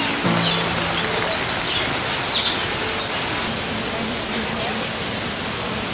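Small birds chirping in many short, high calls over a steady background hiss.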